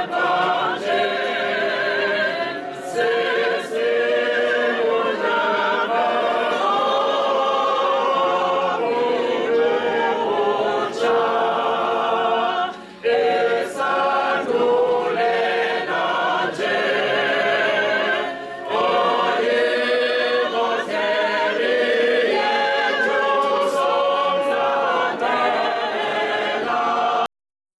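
A group of voices singing a hymn together without instruments, phrase after phrase with short breaks for breath. The singing cuts off abruptly near the end.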